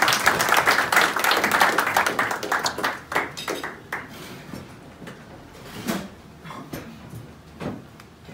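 A roomful of people applauding: dense clapping that thins out about three seconds in and gives way to a few scattered claps and knocks.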